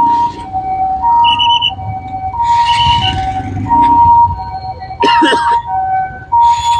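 Ambulance siren sounding a two-tone hi-lo call, alternating between a higher and a lower pitch about every two-thirds of a second.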